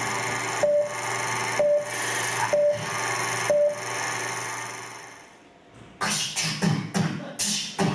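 Mouth-made sound effects from an improv performer: a steady hissing drone over a low hum, broken by four short beeps about once a second, fading out about five seconds in. Choppy, rhythmic vocal noises follow about a second later.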